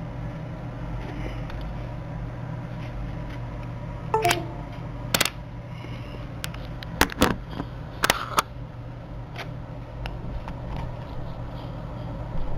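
Several sharp clicks and light handling of small hard objects, clustered from about four to eight and a half seconds in, over a steady low electrical hum.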